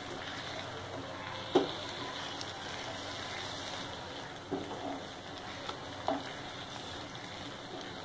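Coconut paste and fried masala sizzling in oil in a nonstick frying pan while a spatula stirs them together, with a few light knocks of the spatula against the pan.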